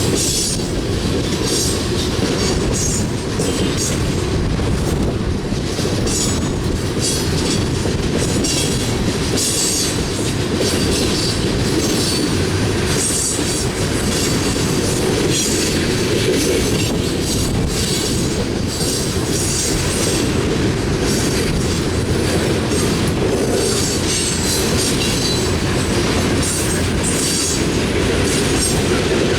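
Coal train's freight cars rolling past: a steady low rumble with frequent sharp high clicks and squeaks from the steel wheels on the rails.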